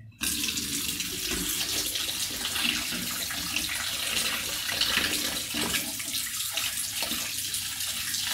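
Kitchen tap turned on just after the start, then water running steadily into the sink.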